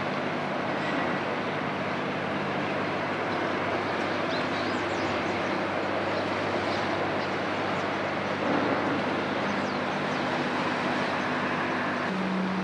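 Steady low mechanical drone with a broad rushing noise over it, the outdoor sound of engines on or around a busy strait. A few faint high chirps come through in the middle.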